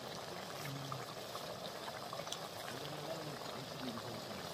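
Partridge meat cooking in a steaming aluminium pot, a steady bubbling hiss with a few small pops as the last of the liquid cooks off. Faint voices are in the background.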